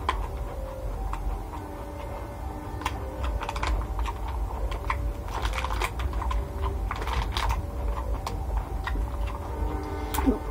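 Fingers picking through rice and side dishes in a clear plastic food box: irregular light clicks and crinkles of the plastic, thickest in the middle, over a steady low hum.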